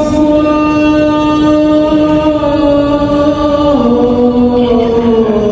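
Wordless a cappella vocal of an Islamic nasheed: one voice holds a long note and steps down to a lower one about two-thirds of the way through.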